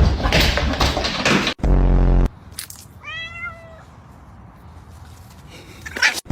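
A cat meows once, a clear drawn-out call about three seconds in. Before it comes a loud, rough, noisy stretch lasting about a second and a half, then a short loud low buzz; a brief sharp sound comes near the end.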